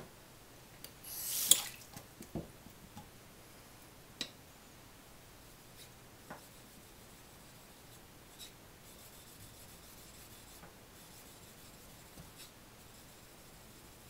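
Whetstones being changed on a wet wooden stone holder: a scraping slide about a second and a half in, followed by a few light knocks. Later come faint, light strokes of a small kogatana blade on a natural finishing waterstone.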